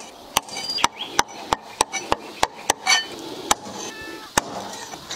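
Cleaver chopping raw chicken feet on a round wooden chopping block, trimming the claws and cutting the feet into pieces: a steady run of sharp knocks, about three a second.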